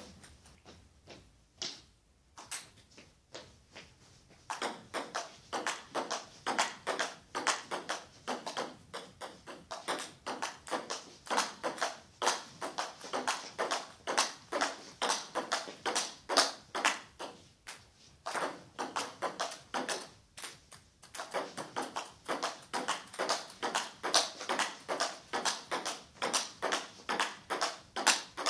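Table tennis ball clicking back and forth off rubber bats and the table in a fast, steady rally, several even clicks a second. It starts after a few scattered taps and pauses briefly twice about two-thirds of the way through.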